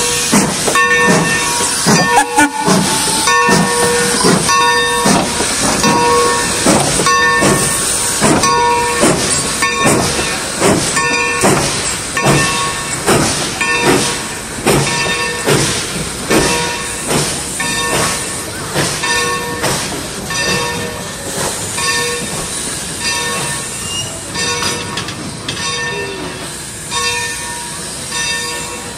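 Steam locomotive bell rung steadily, about one and a half strokes a second, slowly fading as the train moves past. Under it is the running noise of the passenger train rolling by slowly.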